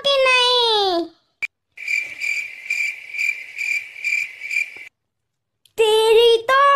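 Cricket-chirping sound effect, a steady pulsing chirp about three times a second for about three seconds, the stock 'awkward silence' gag. A high-pitched cartoon voice speaks before it, and another near the end.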